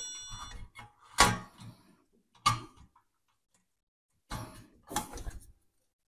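Sheet-metal chassis and circuit board of a Behringer Xenyx Q802USB mixer being handled during reassembly: a metallic ring dies away at the start, then a knock about a second in, another a second or so later, and a cluster of clunks near the end.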